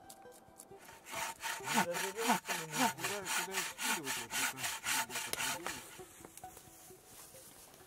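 Bow saw cutting through a log in quick back-and-forth strokes, about five a second, with the blade giving off squealing, shifting tones. It starts about a second in and stops about six seconds in.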